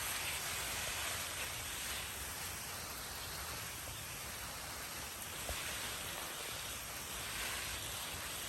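Steady outdoor background hiss, even and without distinct events.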